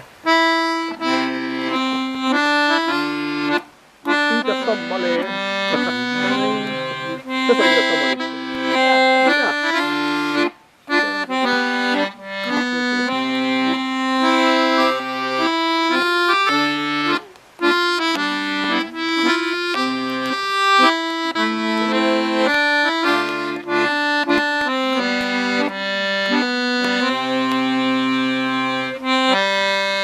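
Accordion starting a new tune: a melody over chords with short, separate bass notes below, broken by a few brief pauses between phrases.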